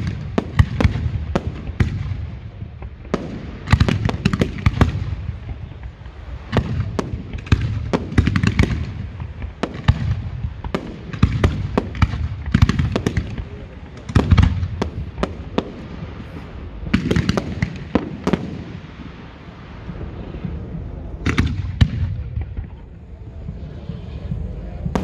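Aerial fireworks display going off in rapid succession: clusters of sharp bangs and crackling reports every second or two, over heavy low booms.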